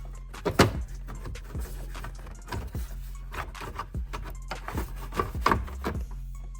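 Plastic dashboard trim panel being handled and pressed into place: a run of sharp clicks and knocks, the loudest about half a second in, over a steady low hum.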